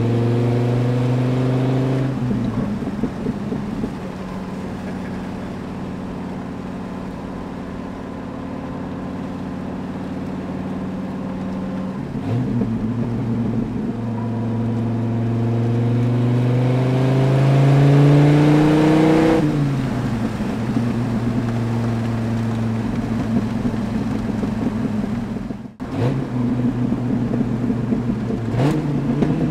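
Dodge Viper SRT-10's V10 engine heard from inside the cabin while driving. The revs fall about two seconds in, the engine pulls at steady lower revs, then it climbs hard for several seconds and the revs drop sharply about nineteen seconds in. The sound cuts out for a moment about twenty-six seconds in before the engine is heard again.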